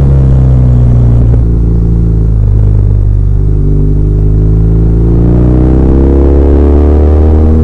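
BMW R1200R's air/oil-cooled boxer twin engine running under the rider: its pitch falls as the bike slows for the first second and a half, holds low for a couple of seconds, then rises steadily as the bike accelerates in the second half.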